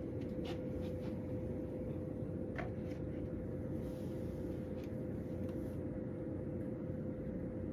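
A room heater running: a steady hum with a constant tone, with a couple of faint clicks in the first three seconds.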